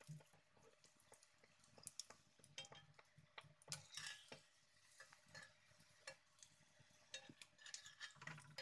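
Kachoris deep-frying in oil in a steel kadhai, a faint crackle with scattered small clicks and scrapes of a metal spoon against the pan as they are turned.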